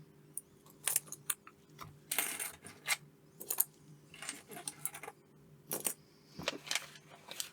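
Small plastic-and-metal automotive blade fuses being handled, clicking and clinking in irregular short rattles as they are picked up and sorted.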